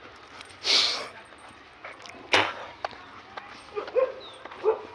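German shepherd dog making short sounds: a breathy snort-like burst about a second in, a sharp click after two seconds, and three brief yelps near the end.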